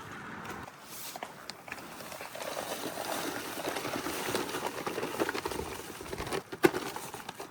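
Concrete mix being churned with water: a wet, gritty working noise with small clicks, and one sharp knock about six and a half seconds in.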